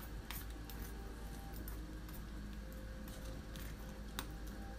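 Faint background music with held tones. Two light clinks of a metal ladle against a stainless saucepan, about a third of a second in and again near the end.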